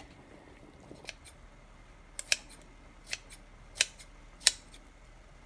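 Metal kitchen scissors snipping kimchi in a pot: a series of short, sharp snips, six or seven in all, spread unevenly over a few seconds.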